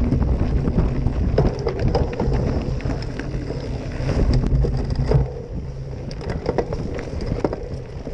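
Wind buffeting the camera microphone while a mountain bike rolls fast over dirt singletrack, with the bike clicking and rattling over bumps throughout. The rumble eases about five seconds in.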